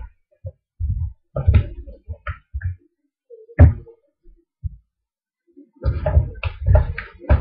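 Irregular dull thuds and knocks with wet squelching as chicken pieces are worked by hand in a thick yogurt marinade and moved into a stainless steel bowl, coming thicker and faster near the end.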